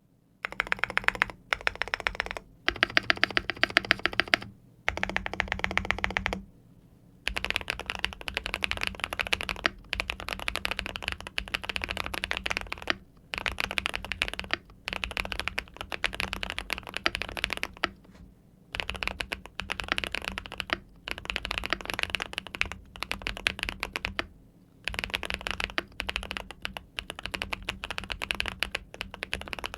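Typing on a Keychron 81 Pro mechanical keyboard with fully lubricated Winter Bonfire switches: fast runs of key presses in bursts of a few seconds, broken by brief pauses.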